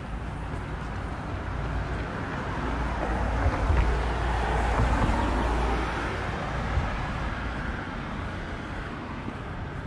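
A motor vehicle driving past: tyre and engine noise with a low rumble that builds, peaks about four to five seconds in, then fades away.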